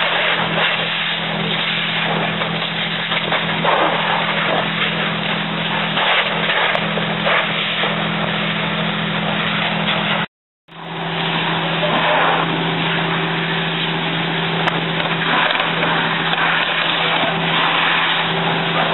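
A fire engine running steadily at the scene, a constant engine drone under a loud hiss from the fire ground. The whole sound drops out for a moment just after halfway, then carries on.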